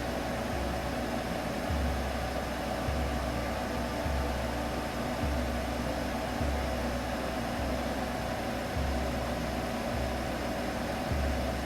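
Baby-sleep soothing sound: a steady hum over a hiss of white noise, with a low throb pulsing evenly about every second.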